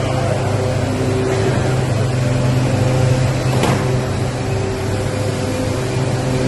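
Corrugated cardboard production line machinery running: a loud, steady mechanical hum with a low drone and several steady tones, some cutting in and out. A single sharp click a little past halfway through.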